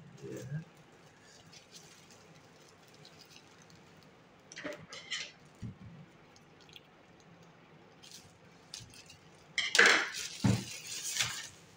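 Thin plastic bag being cut with scissors and then torn open. A few short snips and clicks come about halfway through, and loud crinkling and tearing of the plastic follows near the end.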